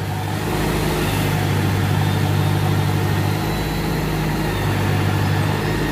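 An engine idling with a steady low hum, its tone shifting slightly a couple of times.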